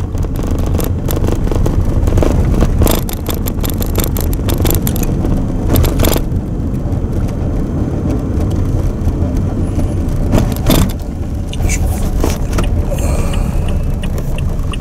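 Road noise inside a moving car: a steady low rumble with rattles and a couple of sharp knocks. Near the end a light ticking about twice a second starts.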